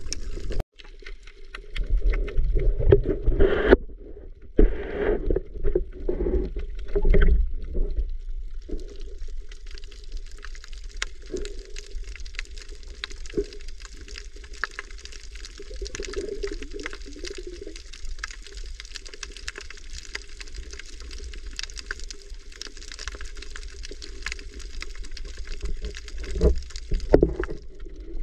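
Underwater sound from a camera below the sea surface. For the first several seconds there is muffled, irregular sloshing and low rumbling of water; after that it settles into a steadier, fainter fine crackle, with a few heavier surges near the end.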